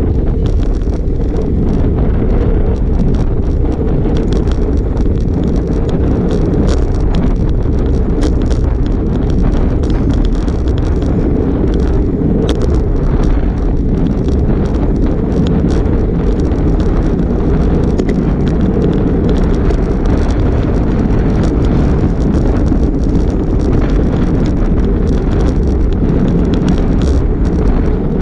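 Wind buffeting a handlebar-mounted GoPro Hero5 Black's microphone on a road bike riding at about 15 mph: a loud, steady low rumble, with scattered faint clicks from road vibration.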